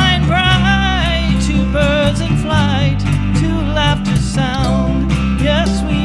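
Live folk band playing a song at a steady level: strummed acoustic guitar, mandolin, electric bass and cajon, with a wavering melody line over bass notes that change every second or two.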